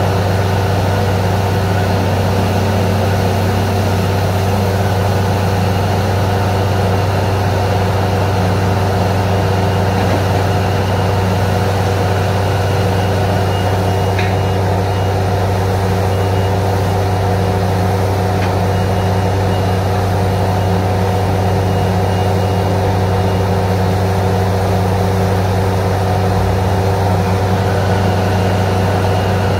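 Truck-mounted borewell drilling rig running steadily under load: its engines drone with a strong low hum while compressed air blows water and mud out of the bore.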